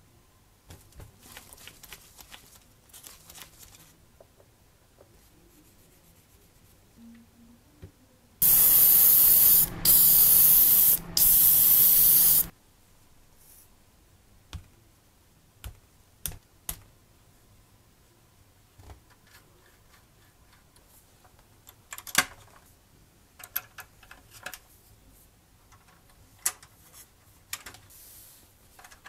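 Three bursts of hissing spray from a pressurised nozzle, each a little over a second long, back to back about a third of the way in. Faint small clicks and taps come before and after.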